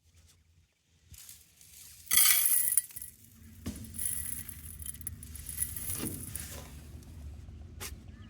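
Clinking and rattling, loudest in a burst about two seconds in, followed by a steady low rumble with scattered clinks.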